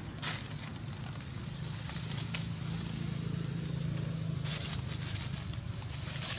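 Dry leaf litter crackling and rustling in short bursts as a baby macaque grabs and mouths a dry leaf and an adult moves through the leaves, over a low steady rumble.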